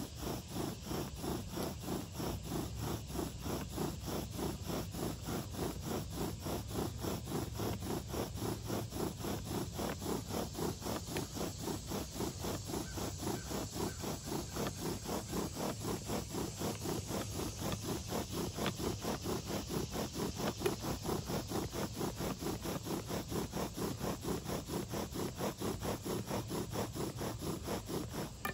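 Bow drill at work: a Virginia pine spindle spun back and forth in a Virginia pine fireboard under a fatwood bearing block, rubbing and scraping in a fast, even rhythm of bow strokes as it grinds out fresh wood dust. The strokes stop suddenly at the very end.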